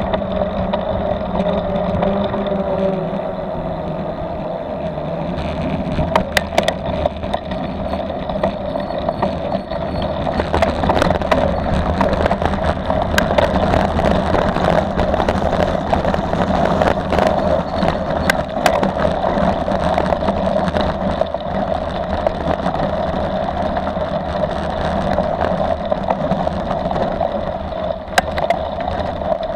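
Mountain bike riding, heard through a bike-mounted camera: a steady rolling hum and rumble from the tyres with frequent sharp rattling clicks from the bike and camera mount over bumps. The rattling grows busier after the first several seconds as the ride moves from asphalt onto loose gravel.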